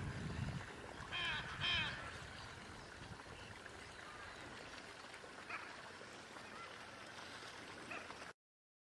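Hyacinth macaws calling: two loud, harsh honking calls about a second in, then fainter calls now and then. The sound cuts off suddenly near the end.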